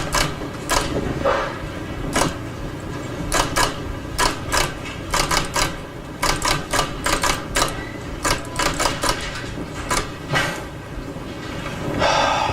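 Manual typewriter keys clacking, an irregular run of sharp keystrokes typed in quick bursts with short pauses between.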